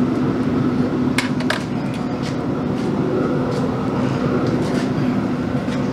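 Steady low hum of a running pellet smoker's fan, with a few light metal clinks from tongs and a sheet pan about a second in.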